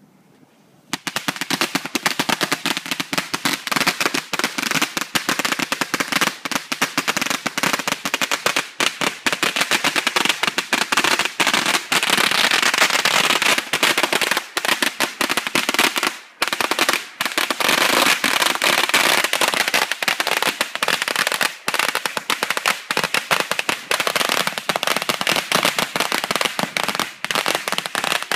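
A long string of firecrackers going off, a rapid unbroken crackle of bangs that starts about a second in.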